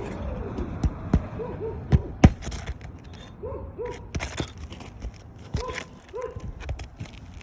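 Asphalt shingles being worked loose on a roof: several sharp cracks and knocks, the loudest about two seconds in, with short stretches of scraping and tearing. The sealed shingles are coming apart and tearing as they are lifted.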